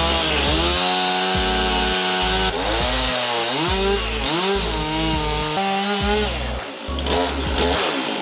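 Stihl gas chainsaw running at high revs as it rips lengthwise down through a large log, the engine pitch dipping and recovering several times as the chain loads up in the cut.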